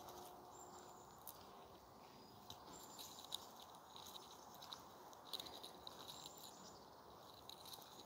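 Near silence: faint footsteps crunching on a gravel path, heard as soft irregular clicks, with a few brief thin high whistles.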